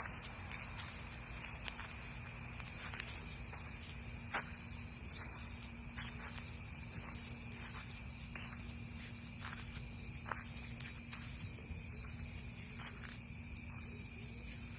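Crickets and other night insects trilling steadily at a high pitch, with scattered soft footsteps.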